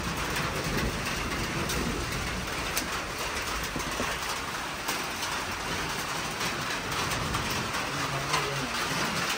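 Steady rain falling: an even hiss with faint scattered drip ticks.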